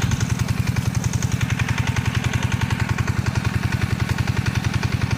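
A small engine running steadily at idle, with a fast, even chugging beat.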